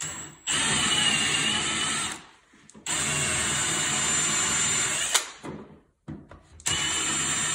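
Cordless drill boring into the wooden post with a mortise bit, countersinking the recess for the key lock plate. It runs in three bursts of one to two seconds with short pauses between, and a sharp click as the second burst stops.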